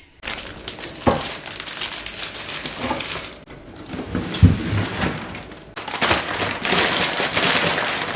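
Plastic grocery packaging being handled: continuous rustling and crinkling, with a light knock about a second in and another about four and a half seconds in, and denser rustling near the end.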